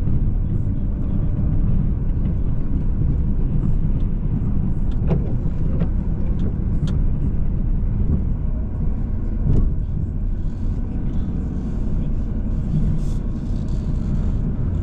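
Chevrolet Silverado pickup engine running steadily under load while pushing snow with a plow, with a few light knocks.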